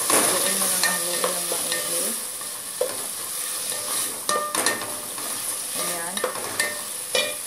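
Wooden spoon stirring and scraping chopped tomato, onion and garlic frying in hot oil in a metal pot. A steady sizzle runs under irregular scrapes and knocks of the spoon against the pot.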